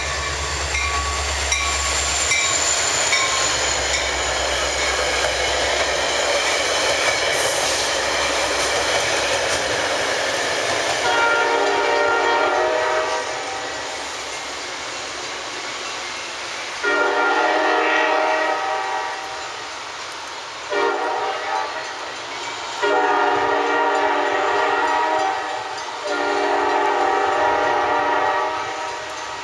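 Metra MP36PH-3S diesel locomotive 423 and its bilevel coaches passing at speed, engine and wheels on the rails, then its Nathan K5LA five-chime air horn sounding as the train pulls away: long, long, a short one, long, long, the grade-crossing signal.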